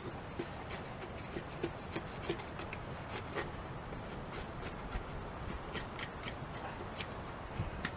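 A knife blade shaving curls off a wooden stick in short, irregular scraping strokes, about one or two a second. The blade's edge is dull, not sharp enough to cut clean fine curls.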